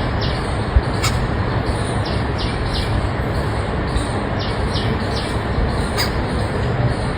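Bird chirping: short, quick downward-sliding chirps, high-pitched, in little groups of two or three, over a steady rushing background noise.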